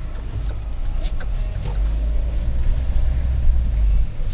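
Low, steady rumble of a Kia Carnival minivan on the move, heard from inside the cabin, with a couple of short clicks about a second in.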